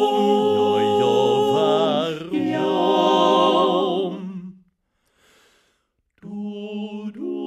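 Male a cappella quartet singing a Wienerlied in close harmony: the voices hold the chord on the last word of a phrase ("warum"), a deep bass note underneath for the first second or so, and the chord dies away about four and a half seconds in. After a short silence the voices come in again, softer, about six seconds in.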